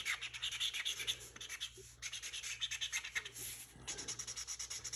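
Black marker scribbling on cardboard in quick, repeated back-and-forth strokes while colouring in an area, with a brief pause about two seconds in.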